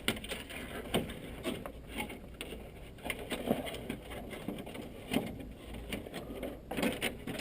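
Irregular clicks, knocks and light scrapes of hands and tools working on a car's front bumper and its trim mounts, with no steady rhythm.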